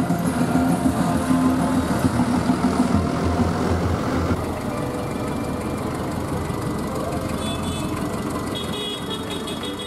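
Tractor engines running as a procession of tractors drives past, louder in the first few seconds and then easing off a little.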